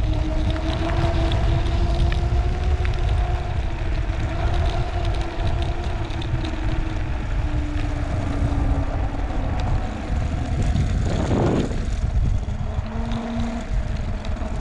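Wind buffeting the microphone of a camera moving along a road, a heavy steady rumble, with a faint hum that slowly drifts lower in pitch and a brief louder swell about eleven seconds in.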